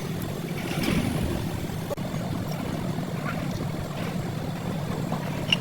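Diesel truck engine running steadily at idle.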